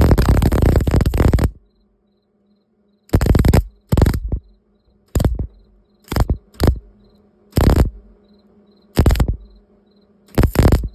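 Welding arc crackling as plug welds are laid on a thin sheet-metal patch panel: one long weld that stops about a second and a half in, then eight short stop-start bursts. Between the welds only a faint steady hum is heard.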